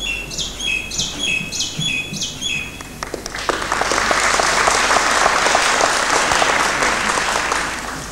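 A bird chirps repeatedly for the first few seconds, each call a quick, high, falling note. Then, about three seconds in, the audience breaks into applause, which carries on and fades near the end.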